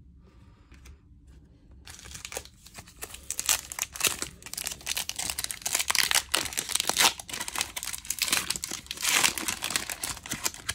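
Foil hockey card pack wrapper being torn open and crinkled by hand. It starts about two seconds in and runs on as dense crackling.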